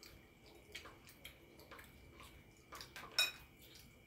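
A spoon scraping and tapping in a bowl of soup, with a few small clicks and one louder ringing clink against the bowl about three seconds in.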